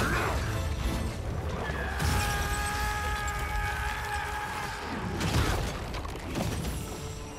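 Film fight sound effects: a heavy booming hit with armour shattering about two seconds in, then another crash of breaking stone a little after five seconds, over the film's score.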